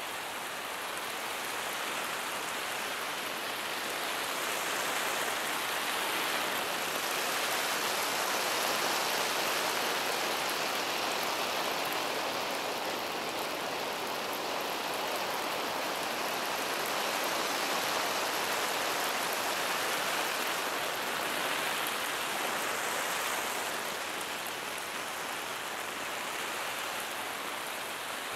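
Lawn sprinkler spraying water, a steady hiss of droplets pattering down that swells and fades slowly every several seconds.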